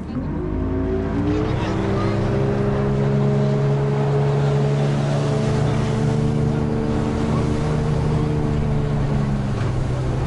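Speedboat motor revving up as the boat pulls away. Its pitch climbs over the first second or so and then holds steady at cruising speed over a constant hiss.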